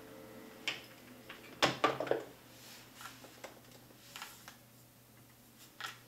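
Corded desk-phone handset hung up, a quick run of sharp knocks about a second and a half in, followed by scattered clicks of typing on a laptop keyboard.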